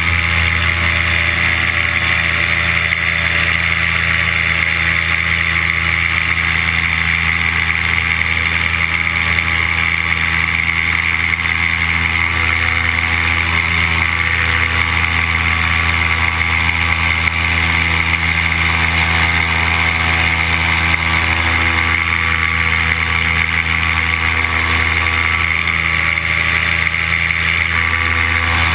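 Paramotor engine and propeller running steadily in flight, a constant drone with no change in throttle.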